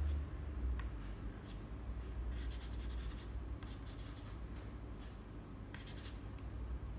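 Soft pastel stick scratching across paper in several short runs of strokes, over a low steady hum.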